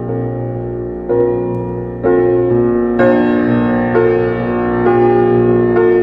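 Slow instrumental background music of held keyboard chords, a new chord about every second.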